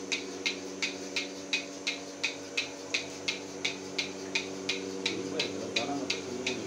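Engine-driven bucket milking machine running: a steady hum from the engine and vacuum pump under a sharp, even clicking of the pulsators, about three clicks a second.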